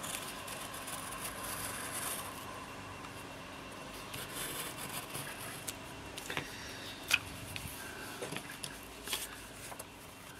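Razor-blade edge of a homemade wooden circle cutter scraping through paper as it is turned around its nail pivot, a steady scratchy hiss that swells and fades. Later come a few sharp clicks and paper handling as the tool is set down and the cut disc is freed.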